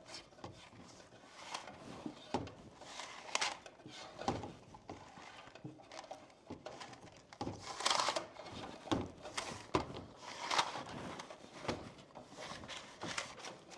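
Irregular scraping, rustling and clicking of electrical cable being worked through a wall cavity toward a plastic electrical box, as it fails to come through the box's hole.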